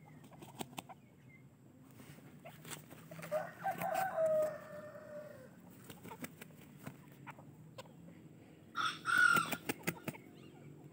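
Rooster crowing: a crow of about two seconds beginning about three seconds in and ending on a falling note, then a shorter, louder, higher-pitched call near the end, with scattered light clicks between.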